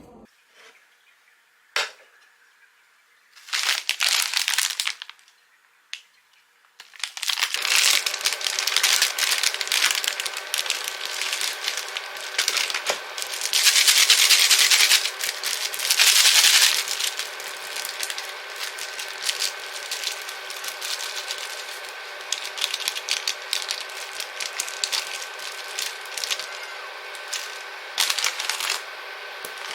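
Food frying in a pan: a hiss full of small crackles starts about seven seconds in and goes on steadily over a low hum. Before it, a single click and a short burst of noise.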